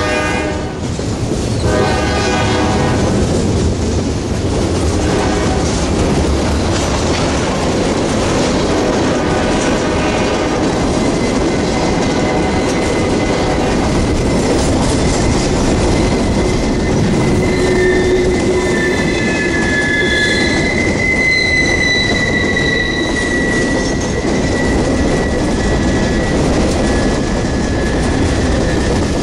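Freight train passing close: a locomotive horn blast ends just as it begins, then the steady rumble and clatter of freight cars rolling by. High wheel squeals come in about twenty seconds in.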